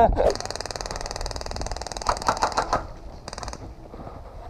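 Airsoft electric rifle firing full-auto: one long burst of about two and a half seconds, then a short burst a moment later.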